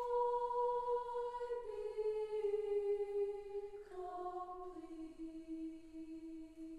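Mixed choir singing a cappella in sustained chords that step downward in pitch and grow steadily softer.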